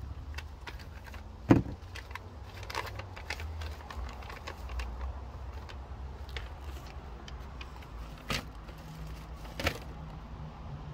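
Cardboard box and paper packing being handled: crinkling and rustling with scattered clicks, a sharp knock about one and a half seconds in and two smaller knocks near the end, over a low steady rumble.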